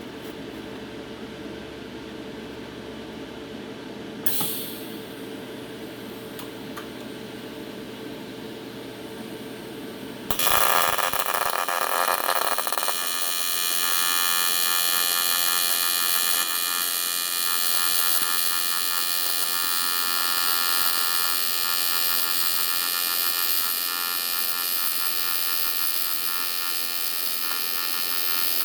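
A steady hum, with a brief hiss about four seconds in. About ten seconds in an AC TIG welding arc strikes on aluminum and buzzes steadily from then on, an electric buzz set by a 65–70 Hz AC frequency at 75% balance.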